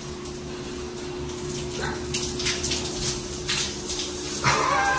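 Shower water running in a small tiled shower stall, with a steady low hum under it. From about a second and a half in come several sharp knocks and clatters, the loudest near the end.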